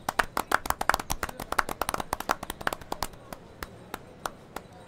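Several people clapping hands, thick and overlapping at first, thinning to scattered single claps after about three seconds.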